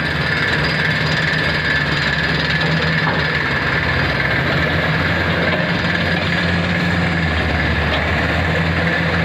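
Heavy diesel engines of mining excavators and tipper trucks running steadily, with a constant high whine over the low engine hum. The engine note shifts lower about seven seconds in.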